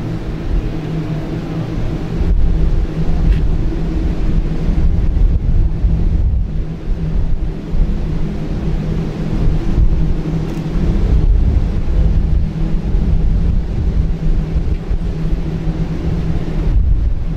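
Wind buffeting the camera microphone: a loud, gusting low rumble, with a steady low hum underneath.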